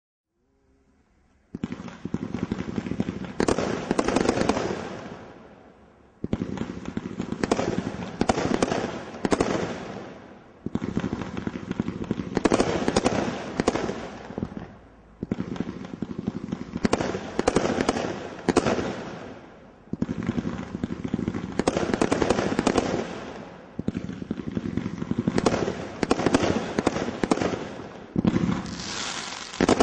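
Brothers Pyrotechnics Open Fire II, a category 3 combination Roman candle barrage, firing rapid shots and bursting stars. It starts about a second and a half in and goes in about seven runs of roughly four seconds each, each run dying away briefly before the next begins.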